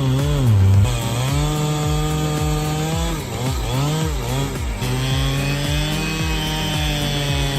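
A chainsaw engine running at high revs while cutting wood. Its pitch dips and recovers as it loads up in the cut, once right at the start and again between about three and five seconds in.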